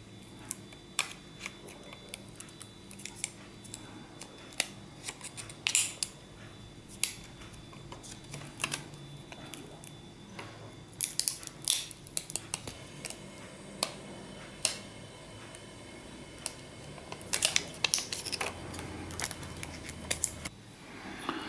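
Plastic backing film and adhesive pull tabs on a replacement phone battery crinkling and crackling as they are peeled and pressed on by hand, in short scattered crackles and clicks.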